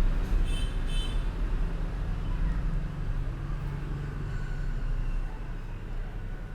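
Steady low background rumble, with two short high-pitched chirps about half a second and one second in.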